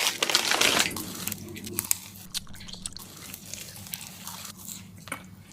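Close-up biting and chewing of a giant Double Bubble bubble gum: a loud crunchy bite at the start, then softer chewing with scattered wet clicks.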